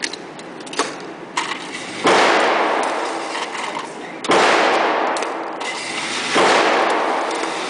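Three gunshots at an indoor range, about two seconds apart, each followed by a long echo that fades in the room. A few fainter sharp pops come before them in the first second and a half.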